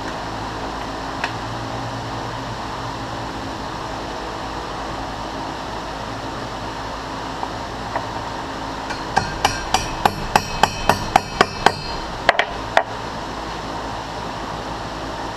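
Quick, light hammer taps, about ten at roughly three a second and then a few more, as a keyway broach is tapped into place in its bushing in a brass impeller's bore before pressing. A steady shop hum runs underneath.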